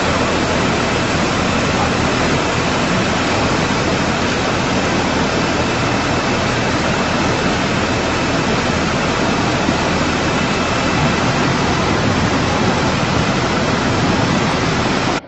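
Loud, steady rushing of fast-flowing floodwater, an unbroken roar of water noise that stops abruptly at the very end.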